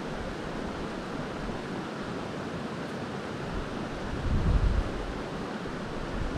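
Creek water rushing, a steady hiss, with a gust of wind buffeting the microphone about four seconds in.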